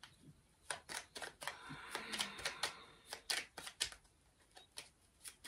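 Tarot cards being shuffled by hand: an irregular run of crisp clicks and flutters as the cards slide and slap together, thinning to a few clicks near the end.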